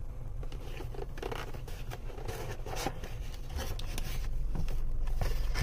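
A cardboard box being handled and opened by hand: irregular scraping and rustling of cardboard, louder in the second half as the lid comes open.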